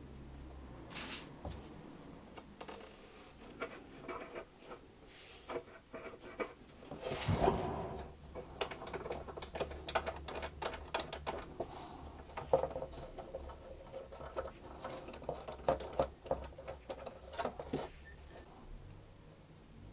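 Small metal crack clamps with brass thumbscrews being handled on a cello's wooden back: many light clicks, taps and scrapes as they are set in place and screwed tight, with a louder knock about seven seconds in.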